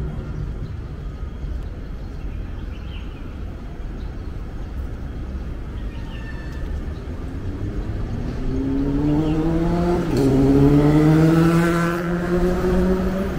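Street traffic rumble, then a road vehicle's engine accelerating nearby. Its pitch climbs from about halfway through, drops briefly about ten seconds in, then climbs again, and it is loudest near the end.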